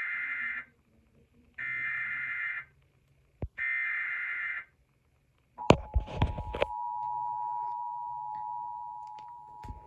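Emergency Alert System SAME header: three one-second bursts of screeching digital data tones, a second apart. Then, after a few crackling clicks about halfway through, the steady two-tone EAS attention signal begins and holds, announcing a new warning.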